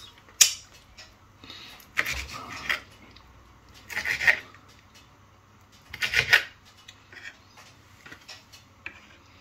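Kitchen knife cutting crisp grilled bacon-wrapped green onions on a wooden cutting board: a sharp tap about half a second in, then three short crunchy cutting strokes about two seconds apart, followed by a few light ticks of the blade.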